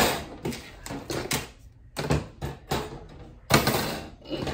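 Metal wire wreath forms clattering and clacking against each other and a tabletop as they are picked up, set down and slid into place: a run of uneven sharp knocks, the loudest about three and a half seconds in.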